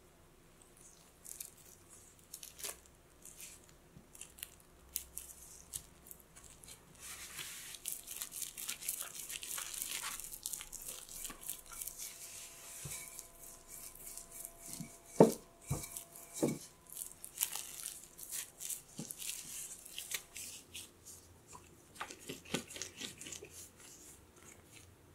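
Plastic cling film crinkling and rustling as cookie dough wrapped in it is handled and rolled flat with a wooden rolling pin on a silicone baking mat. There are scattered small clicks and a few sharp knocks, the loudest about fifteen seconds in.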